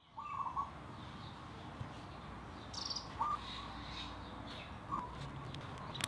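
Faint bird chirps, a few short calls spaced a couple of seconds apart, over a steady background hiss, with a sharp click near the end.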